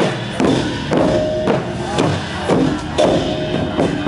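Northern Thai kong pu ja drum ensemble playing: large barrel drums struck with sticks in a steady beat of about two strokes a second, with hanging gongs ringing and hand cymbals clashing.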